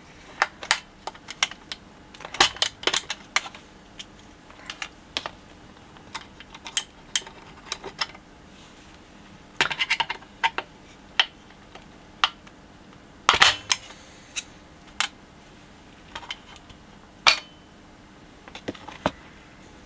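Irregular sharp metallic clicks and clinks as a BSR UA15SS record changer is taken apart by hand: a small tool working retaining clips off and the cam gear wheel being lifted off the centre spindle. The loudest clinks come about two-thirds of the way through.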